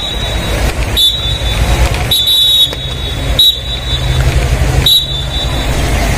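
Short high-pitched electronic beeps repeating about every second and a bit, over a steady low rumble.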